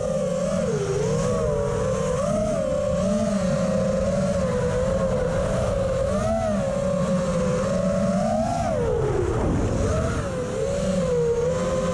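FPV quadcopter's brushless motors and propellers whining, the pitch wavering up and down with throttle changes and sagging briefly about nine seconds in, over a low rush of air.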